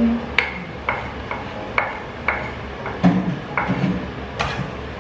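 A slotted spatula knocking repeatedly, about twice a second, against a wooden cutting board and the rim of a frying pan, each knock ringing briefly, as chopped garlic is scraped and tapped off into the pan.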